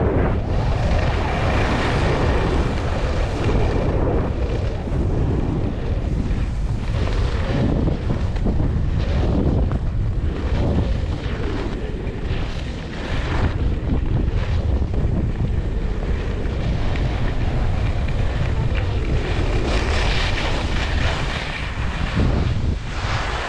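Wind buffeting the microphone at skiing speed, over the rushing scrape of ski edges carving across groomed snow, swelling and easing with each turn. It quietens right at the end as the skis slow down.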